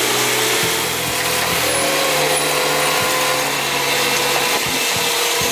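A steady, loud mechanical whine and hiss from running machinery, its pitch drifting slightly.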